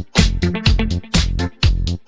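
Upbeat disco-funk dance music with a heavy bass line and a steady beat, about two beats a second.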